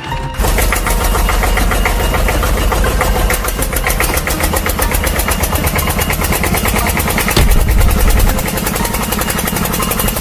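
Excavator diesel engine sound running with a fast, even knock, which starts abruptly about half a second in. A louder low surge comes about eight seconds in.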